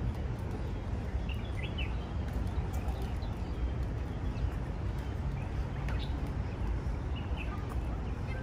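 A few short, scattered bird chirps over a steady low rumble of outdoor background noise.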